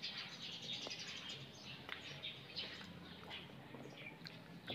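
Faint chirping of small birds, short phrases one after another, with a few light clicks of a fork against a plate.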